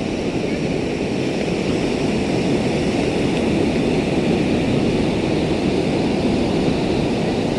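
Steady wind and surf noise at the rocky shoreline, an even rushing that does not let up.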